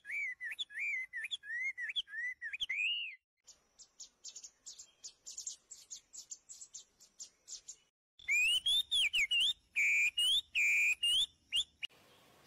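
Birds singing. A whistled phrase that rises and falls repeats about twice a second, then fast high chirping takes over about three seconds in, and louder whistled notes return about eight seconds in, each change coming abruptly.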